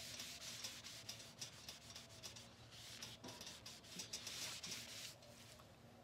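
A cloth shop towel wiping hemp oil over the painted metal side of a mini refrigerator: a faint, scratchy rubbing in strokes that stops about five seconds in.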